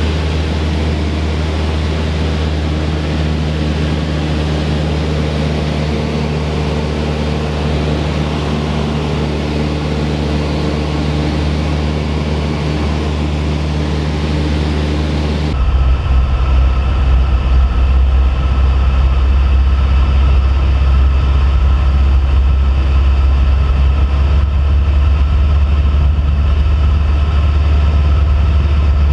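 Cessna 172P's four-cylinder Lycoming engine and propeller droning steadily in flight. About halfway through the sound switches abruptly to a deeper, heavier drone with less hiss.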